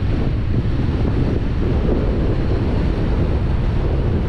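Strong wind buffeting the microphone: a steady, loud, low rumbling noise.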